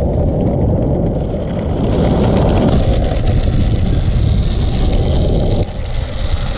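Skateboard wheels rolling fast over asphalt, a steady low rumble, as the board is towed along by a running husky. The rumble eases briefly near the end.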